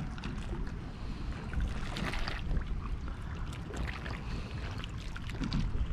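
Wind rumbling on the microphone and water lapping around a kayak, with a few light scrapes and clicks near the middle as a knife works into a halved avocado.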